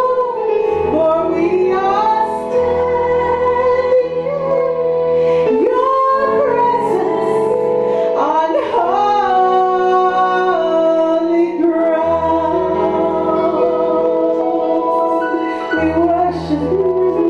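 A woman singing a worship song into a handheld microphone, holding long notes and sliding between pitches, over sustained electronic keyboard chords that change every few seconds.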